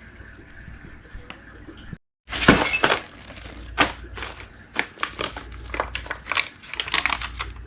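Packaging being handled during an unboxing: plastic and paper crinkling and rustling with many sharp clicks and clatters. There is a loud rustle about two and a half seconds in, just after a brief dropout.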